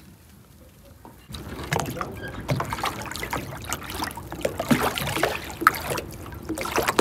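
Small waves lapping and splashing at the water's edge, starting about a second in, with irregular slaps and gurgles.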